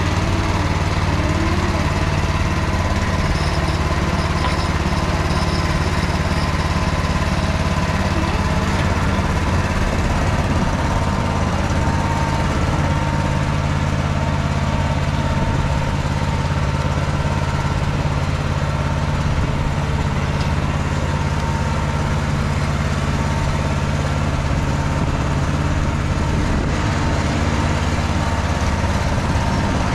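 Engine of an MT8-070 Mini small tractor running steadily at an even speed, hauling a plough through the soil.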